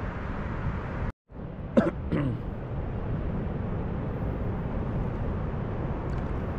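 Steady low outdoor background noise that drops out to silence for a moment about a second in, then two short vocal sounds from a person just after.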